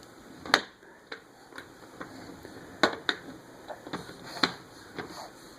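Toys being handled and knocked together: about ten irregular sharp clicks and knocks, the loudest about half a second in and twice around three seconds.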